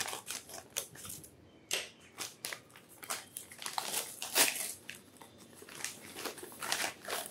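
Scissors snipping through a brown kraft-paper mailer bag, then the stiff paper crinkling and rustling in irregular crackles as it is pulled open, loudest about four and a half seconds in.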